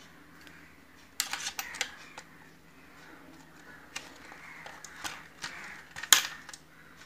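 Clicks and rattles of a plastic electrical switch board and its wiring being handled, with a cluster of clicks about a second in. The loudest, sharpest click comes about six seconds in, as a finger presses one of its modular switches.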